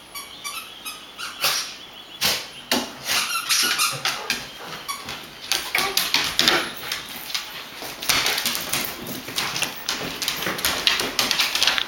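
Golden retriever and Jack Russell terrier play-fighting: scuffling, and claws clicking and scrabbling on a hardwood floor, with short play growls and yips. The clicking and scuffling get busier and louder about halfway through, as the retriever grabs and tugs at a cloth.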